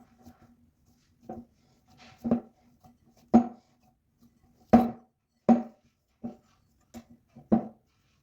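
A kitchen utensil knocking on a hard surface: about ten irregular knocks, each with the same short ringing tone.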